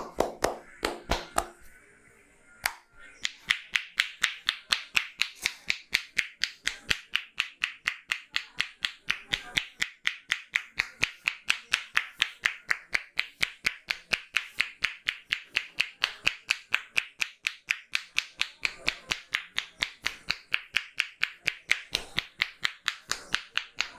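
A barber's hands slapping a client's head and shoulders in percussive massage strokes. There are a few slaps at first, then from about three seconds in a steady, even run of about four sharp slaps a second.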